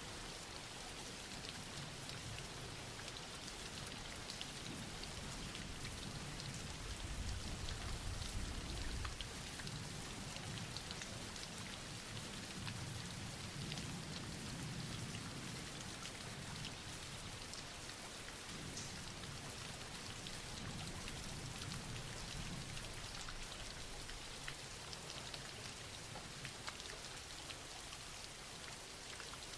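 Steady rain falling, with scattered single drop hits; a low rumble swells briefly about seven seconds in.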